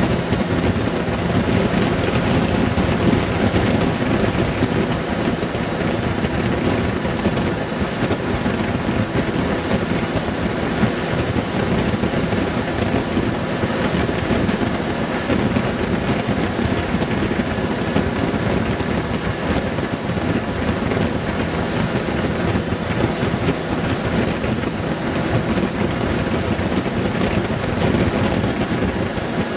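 Steady wind rush on the microphone over the drone of a Honda Gold Wing 1800's flat-six engine, cruising at road speed.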